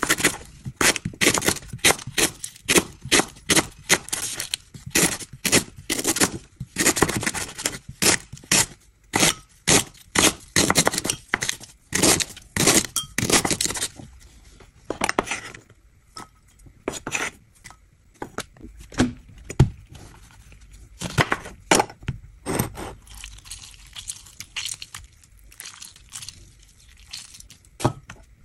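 A chef's knife slicing fresh lemongrass stalks on a bamboo cutting board, crisp cuts knocking against the wood at about two to three a second. After about halfway the cuts thin out to scattered knocks.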